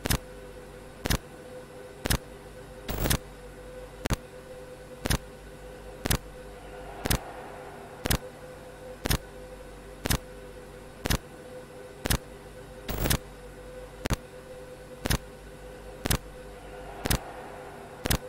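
Countdown ticking sound effect, one sharp clock-like tick every second, over a faint steady hum.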